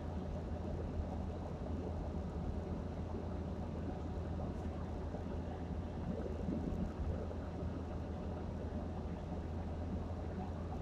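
Steady low rumble of road and engine noise heard from inside the cabin of a car driving along a highway.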